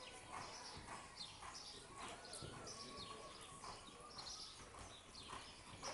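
Faint, soft hoofbeats of a horse loping on the dirt footing of an indoor arena, in a steady rhythm.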